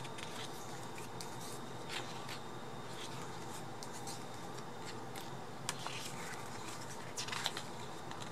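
Pages of a photo book being turned by hand: a few soft paper rustles and light taps over a steady low hiss.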